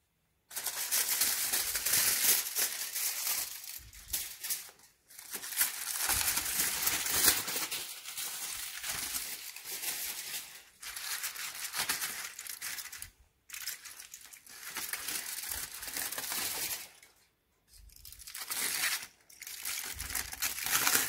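Kitchen foil crinkling and crumpling as it is handled and pulled back from an oven-roasted chicken, in several stretches broken by short pauses.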